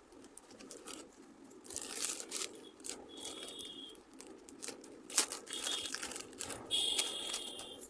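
Plastic packaging crinkling and tearing as a parcel is opened, in irregular bursts with a sharp rip about five seconds in, and a few brief high squeaks among the rustling.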